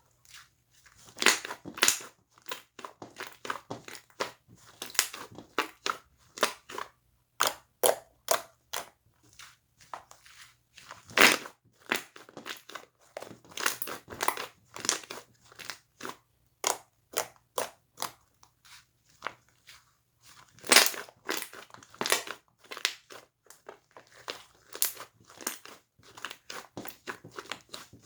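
Slime being squeezed and kneaded by hand, giving a run of sharp, irregular clicks and pops, with a few brief pauses.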